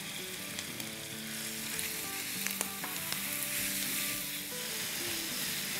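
Freshly added raw ground chicken and onions sizzling in hot oil in a frying pan over a gas flame, stirred with a silicone spatula, with a few light scrapes and taps against the pan.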